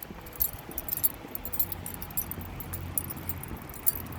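Small metal pieces jingling in short, irregular clinks over a low, steady rumble.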